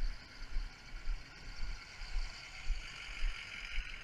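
Outdoor background noise: a steady hiss with irregular low rumbling thumps.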